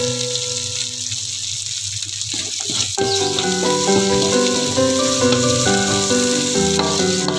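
Chopped garlic, shallot and chili sizzling in hot oil in a wok as they are stirred with a spatula, under background music whose melody of held notes changes about three seconds in.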